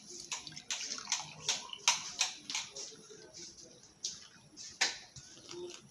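Lemon water being poured from a steel pot through a plastic tea strainer into drinking glasses: a splashing trickle broken by many short clinks and knocks.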